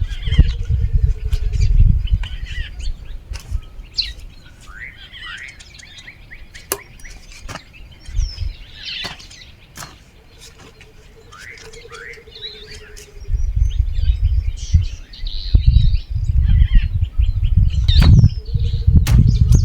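Small birds chirping repeatedly with short rising and falling calls, and a few sharp clicks. A loud low rumble covers the first two seconds and returns from about two-thirds of the way through.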